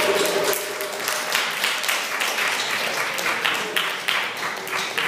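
Arabic tabla (darbuka goblet drum) played in an improvised solo: many quick, sharp strokes, mixed with audience clapping.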